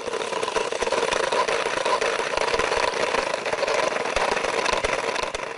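A small motor running steadily with a buzzing, crackly tone, cutting off suddenly at the end.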